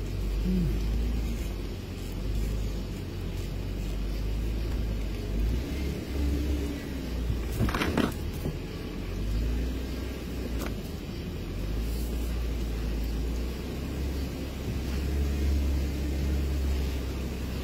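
Off-road vehicle engine running at low speed with a steady low rumble, its pitch rising and falling a couple of times as the throttle changes. A brief loud clatter or thump about halfway through.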